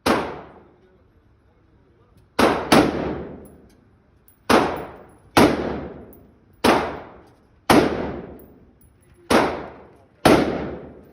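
Gunshots fired one at a time: nine sharp reports at uneven intervals, two of them in quick succession, each trailing off in a long echoing decay.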